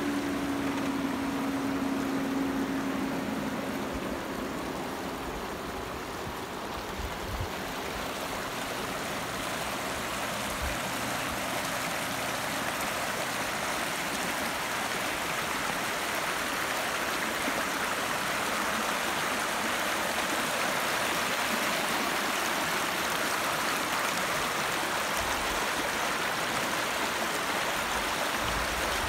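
Muddy pond overflow water rushing and churning over rocks in a shallow channel: a steady rushing noise that grows a little louder over the first half.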